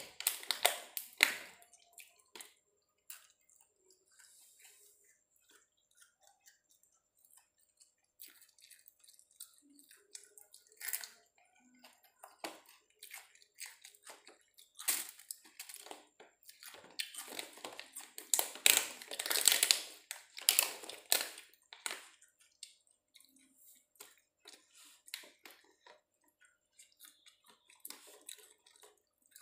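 Someone eating fried chicken by hand: chewing, with scattered clicks and crackles from fingers picking food out of a clear plastic takeaway box. A short burst right at the start and a longer, louder run of crackling about two-thirds of the way through.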